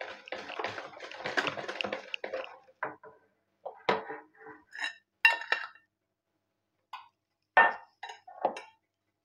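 Wire balloon whisk beating runny cake batter in a plastic bowl, rapid strokes for about two seconds. Then a series of separate clinks and taps of utensils against the bowls.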